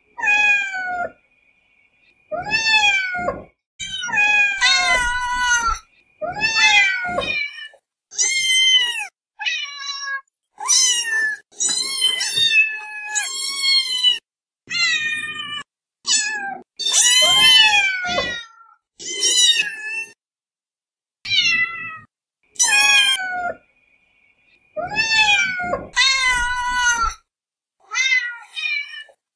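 A string of cat meows, about twenty separate calls, each rising and then falling in pitch, some high and thin like a kitten's, others lower and longer, with short silent gaps between them.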